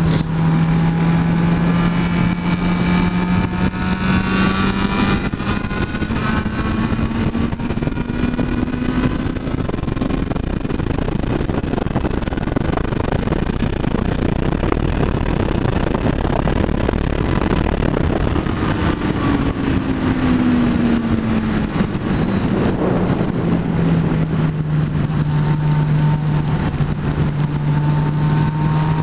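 Motorcycle engine running at highway speed under a steady rush of wind and road noise. Its note climbs slowly over the first several seconds, drops about two thirds of the way through as the bike slows, then holds steady.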